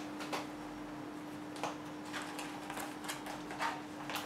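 A handful of faint, light ticks and rustles as plastic cards are slid into the front slot of an embossed-leather Michael Kors Jet Set Travel wallet on chain, over a faint steady hum.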